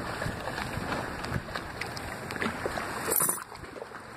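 Lake water sloshing and lightly splashing around a hand that holds a fish in the water beside a kayak while releasing it, with a brief louder swish a little after three seconds in.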